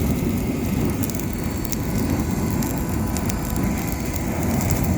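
Campfire being fanned with air from a vacuum cleaner: a steady low rushing of the blown flames, with scattered crackling snaps of burning wood, over a faint steady motor hum.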